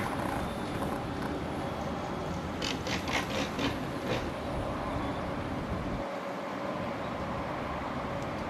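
Steady low outdoor rumble, with a quick run of about six splashy beats around three seconds in as an osprey flaps its wings against the water surface, struggling to lift off after a plunge-dive.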